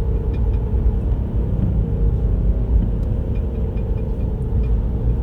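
Car driving, heard from inside the cabin: steady low engine and road rumble.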